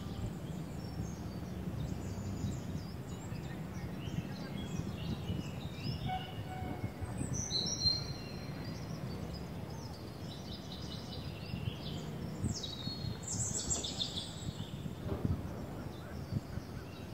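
Birds chirping and calling in scattered short phrases, loudest about halfway through and again near the end, over a steady low background rumble.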